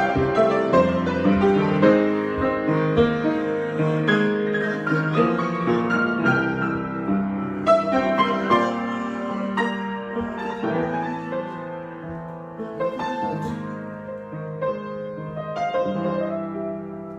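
Solo piano improvising: held chords under a line of melody notes, growing gradually softer toward the end.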